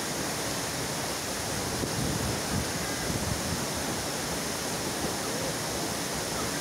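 A waterfall and the water pouring down a concrete spillway below it: a steady, even rush of falling and running water.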